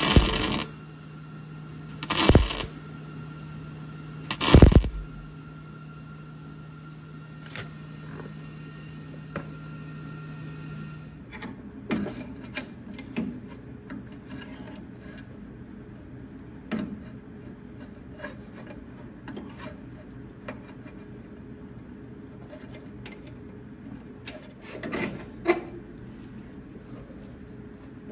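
Miller-Matic MIG welder laying short tack welds on the frame steel: three half-second bursts of crackling arc in the first five seconds over a steady hum that stops about eleven seconds in. After that come scattered metallic clicks and taps, with one more short weld burst near the end.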